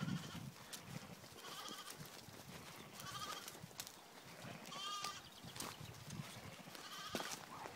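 Lambs bleating, about four short, high, quavering calls, the loudest about five seconds in.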